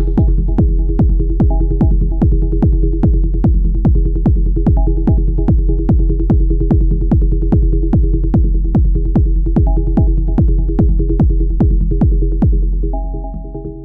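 Hypnotic techno pattern played on an Elektron Model:Cycles groovebox: a steady four-on-the-floor kick drum about twice a second under a held synth drone, with a short higher synth figure coming back every few seconds. Near the end the kick drops out and the level falls away.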